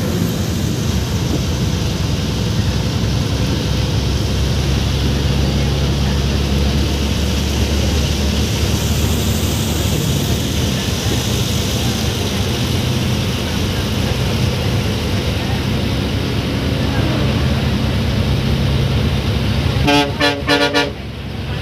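Bus engine running steadily under way, heard from inside the cab along with road noise. Near the end the horn gives a quick run of short toots.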